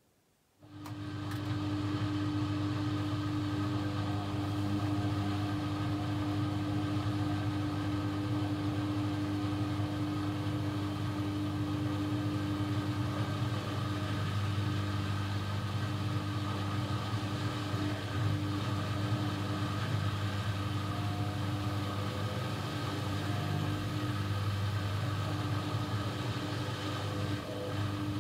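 AEG Lavamat 1400 washing machine: a steady electric hum with an even rushing noise starts abruptly about a second in and runs on unchanged.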